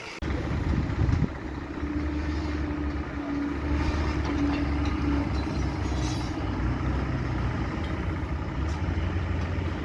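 An engine running steadily: a low rumble with a steady hum above it, starting abruptly just after the start.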